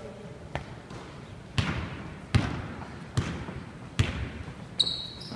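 A basketball being dribbled on a hardwood gym floor: about six steady bounces, one every second or less, echoing in the hall.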